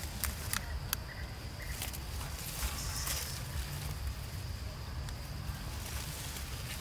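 Forest ambience: a thin, steady insect drone over a low rumble, with three sharp clicks in the first second and a brief rustle about two and a half seconds in.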